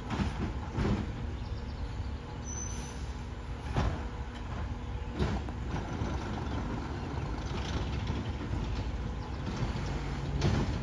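Automated side-loader garbage truck running with a steady low rumble, with sharp clunks and knocks at the start, about a second in, and around four and five seconds in.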